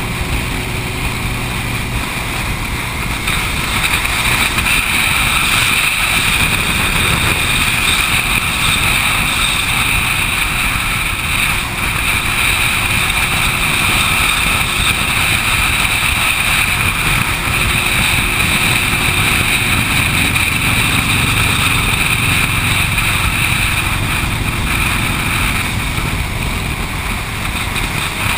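Motorcycle engine running steadily at highway cruising speed, mixed with wind and road noise, heard from a camera riding along on a moving motorcycle.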